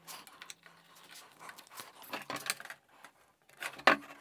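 Small handling sounds on a workbench: a pencil scratching as it traces around a tin can held on an OSB board, with a few light knocks and clicks, the sharpest near the end.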